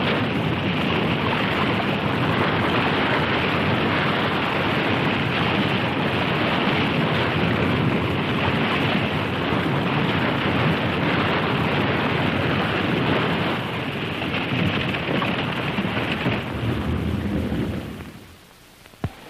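Rushing river water, a steady roar as it pours through a jam of logs. It fades out about 17 seconds in, and a single click follows near the end.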